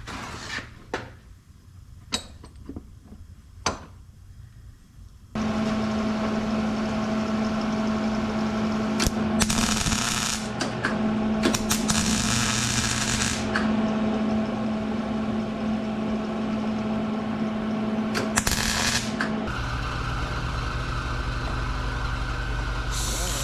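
MIG welder welding a broken stud onto a steel vent wing window frame right next to the glass. After a few handling clicks, the wire-feed arc starts suddenly about five seconds in and runs as a steady buzzing crackle with louder hissing flares. Near the end it gives way to a different steady machine noise.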